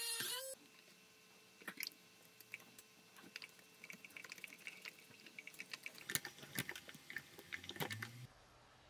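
A small handheld rotary tool whirs and stops about half a second in. Then faint, scattered clicks and ticks of a screwdriver turning a small screw into a 3D-printed plastic part, coming thicker near the end.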